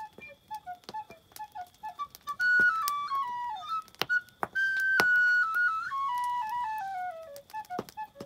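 A small end-blown whistle playing a tune: quick short notes at first, then a rising run to a held high note, another long high note about halfway through, and a falling run of notes near the end.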